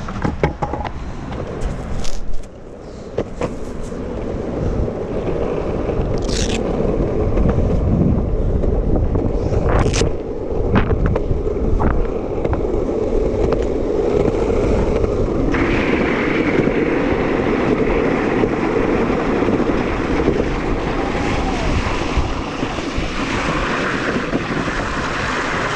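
Downhill longboard rolling fast on asphalt: a steady rush of wheel noise, with wind blowing across the camera microphone and a few sharp clicks. The rush builds over the first few seconds and turns brighter about halfway through.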